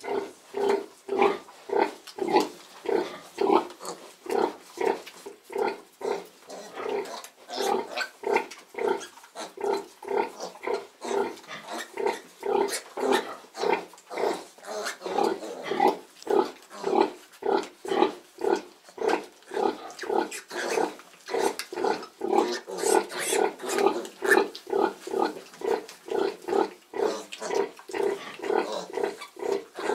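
A nursing sow grunting in a steady rhythm, about two short grunts a second, while her newborn piglets suckle at the udder: the regular nursing grunts a sow gives during a feed.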